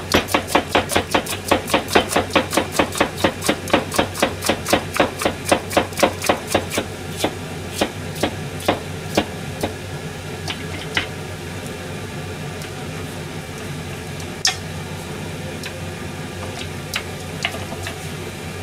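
Cleaver chopping vegetables on a cutting board: quick, even strokes about five a second for the first seven seconds, then slower, scattered chops, and a few single knocks in the second half.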